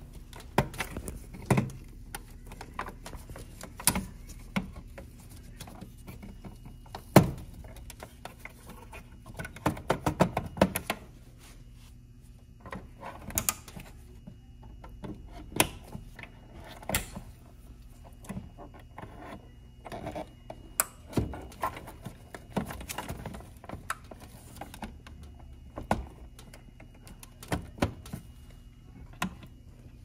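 Plastic multi-pin wire-harness plugs being handled and pushed into the sockets of a replacement Crown boiler control board: scattered clicks and knocks, the sharpest about seven seconds in, over a faint steady hum.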